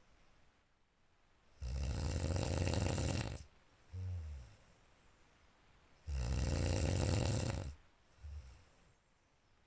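A person snoring loudly in deep sleep: two long rasping snores about four and a half seconds apart, each followed by a short, lower, pitched snort-like breath.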